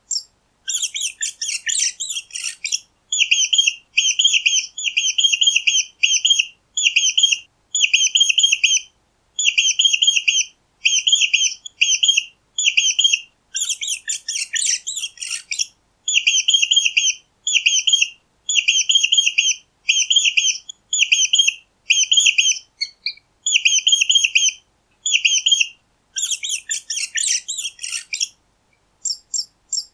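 Mouse squeaking: a long series of short, high-pitched squeaks, about two a second, with three bursts of denser, scratchier squealing near the start, midway and near the end.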